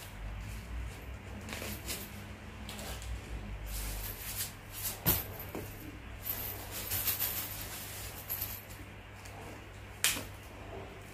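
Handling noise of a new handbag being unpacked: crinkling and rustling of paper stuffing, with a few sharp clicks of the strap's clasp, the loudest about five seconds in and another near the end.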